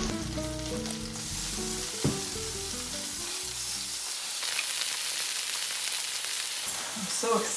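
Button mushrooms and garlic sizzling on an electric tabletop grill plate, the sizzle growing a little about four seconds in as raw beef slices are laid on with tongs. A single click about two seconds in.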